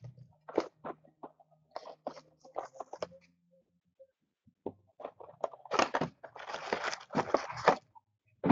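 Packaging of a hockey-card blaster box being opened by hand: a scatter of short clicks and rustles of handling, then, past the middle, about two seconds of dense tearing and crinkling.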